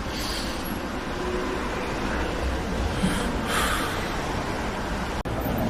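Steady background noise of a busy city street, with no clear single source, briefly swelling with hiss about three and a half seconds in and cutting out for a moment near the end.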